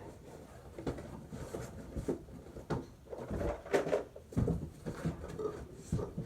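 Irregular knocks and clatter of things being handled and set down, with a small room's echo.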